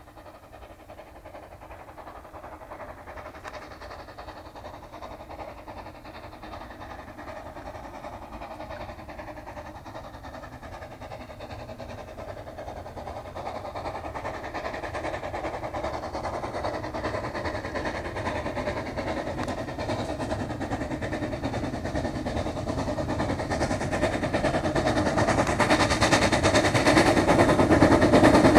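Small steam locomotive approaching, its rapid exhaust chuffs growing steadily louder as it draws near.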